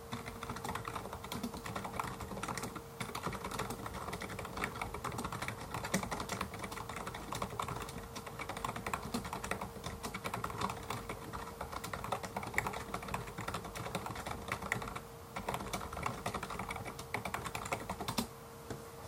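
Fast, continuous typing on an LG gaming keyboard, a dense run of clicky keystrokes. The typing pauses briefly about three-quarters of the way through and stops just before the end.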